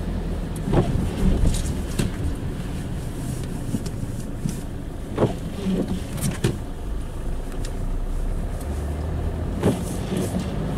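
Car driving slowly on a wet, slushy street, heard from inside the cabin: steady engine and tyre noise with a few short knocks and clicks.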